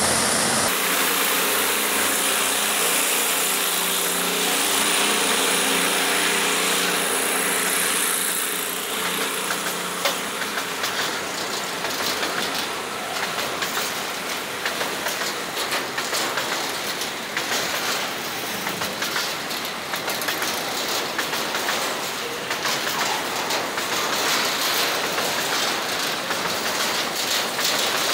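Freight train of open wagons rolling past at close range, its steel wheels clicking and clattering over the rail joints. For about the first ten seconds a steady engine drone runs under it. After that the clatter becomes denser and quicker, the footage running at double speed.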